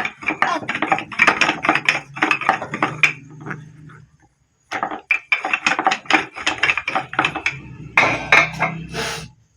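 Quick clattering and knocking of dishes and utensils, in two runs with a short break about four seconds in.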